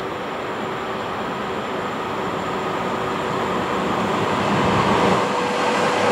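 Train approaching along the track, its running noise growing steadily louder.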